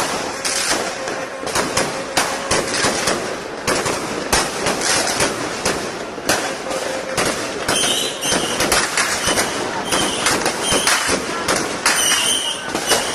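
Fireworks going off, a dense run of rapid irregular cracks and pops, with short high squeals mixed in over the second half.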